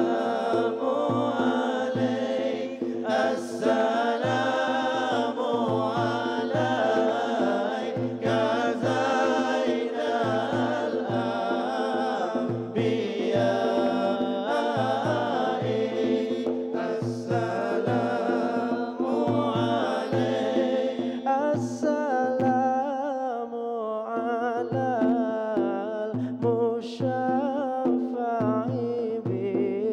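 A man singing Islamic devotional selawat (praise of the Prophet) into a microphone in a melismatic chant, over a steady held drone and a low regular beat about twice a second.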